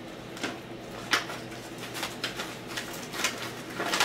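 Mail packaging being opened by hand: a padded envelope and its paper and plastic wrapping rustling and crinkling in short, irregular crackles.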